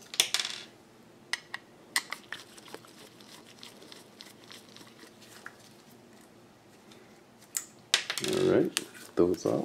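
Sharp metallic clicks and clinks as Phillips screws are backed out of a hard drive's metal mounting bracket with a screwdriver and the metal parts are handled. Near the end comes a louder stretch of handling noise, about a second and a half long.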